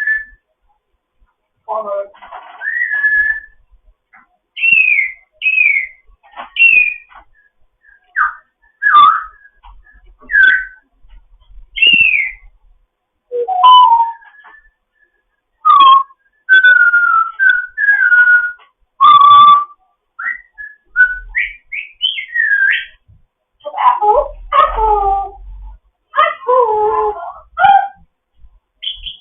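African grey parrot whistling and chattering: a string of short whistled notes that glide up and down, one every second or so. Near the end they give way to a jumble of mumbled, voice-like chatter.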